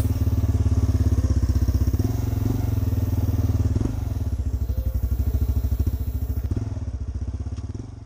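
ATV engine running at a steady speed, with a fast, even low firing pulse, fading out near the end.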